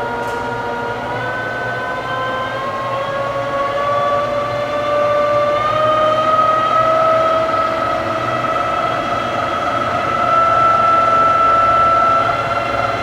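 Lehigh gap-bed engine lathe running with no load. Its drive and gearing make a steady whine that climbs slowly in pitch as the spindle speed is raised on the variable-speed drive.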